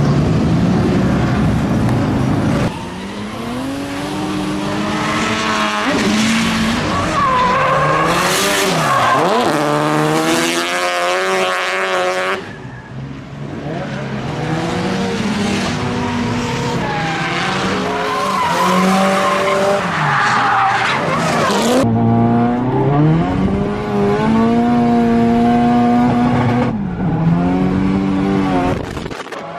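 Nissan S13 drift car sliding with tyres squealing and skidding, its engine revving up and down again and again through the drifts. The sound changes abruptly a few times as the shots change.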